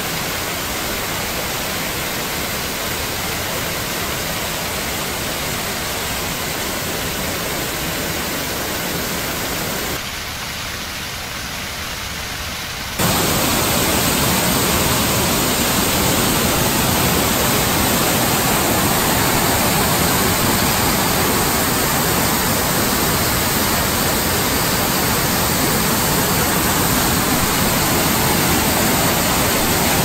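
Rushing water of a rain-swollen mountain stream pouring in cascades over granite boulders: a steady, loud rush. It dips a little about ten seconds in, then comes back louder about three seconds later.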